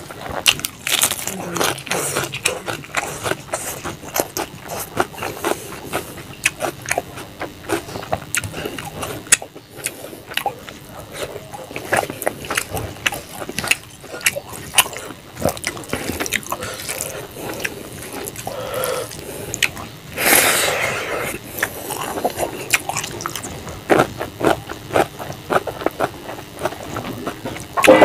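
Close-up wet eating sounds: fingers squishing and mixing rice and pangas fish curry on a plate, and a mouth chewing, a steady stream of small wet clicks and smacks. A longer, louder noisy burst comes about twenty seconds in.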